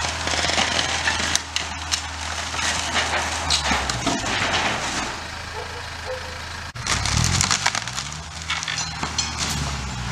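Tractor engine running and revving under load as it pulls on an old barn's timber frame. The wood cracks and splinters throughout. The engine revs up twice in the latter part.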